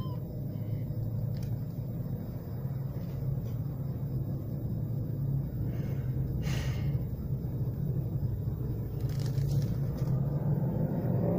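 A motor vehicle engine running steadily nearby, a low hum that slowly grows louder.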